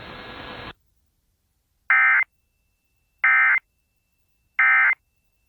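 Emergency Alert System end-of-message data bursts: three identical short, shrill digital screeches about a second and a third apart, following a radio hiss that cuts off abruptly just under a second in. The three bursts are the SAME-coded end-of-message signal that closes an EAS weather radio alert.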